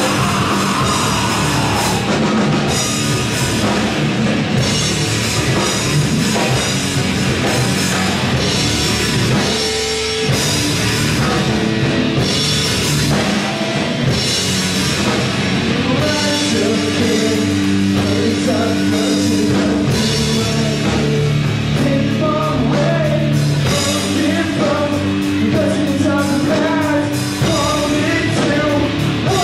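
Live rock band playing loudly: electric guitars, bass guitar and a drum kit, with cymbals crashing throughout.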